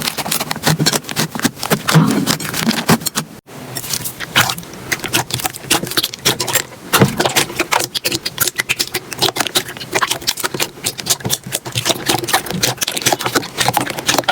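Slime being squeezed and poked by hand, giving dense, quick crackling and popping clicks, with a brief break about three and a half seconds in.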